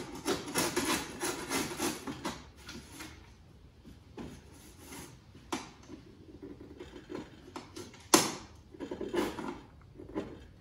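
Chisel scraping old glazing putty out of a wooden window sash: a run of short scraping strokes against the wood and glass edge. There is one sharper, louder knock about eight seconds in.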